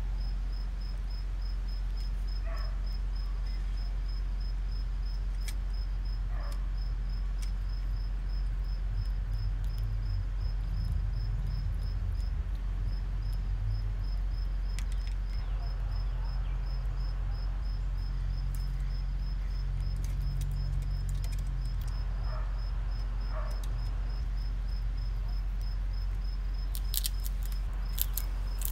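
A cricket chirping in a steady, rapidly pulsing high trill, over a low steady hum. A few faint short chirps come through, and there is a cluster of sharp clicks near the end.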